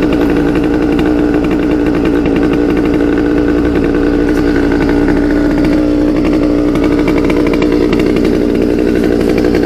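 Small gasoline engine running steadily at a constant high speed, its pitch holding level throughout.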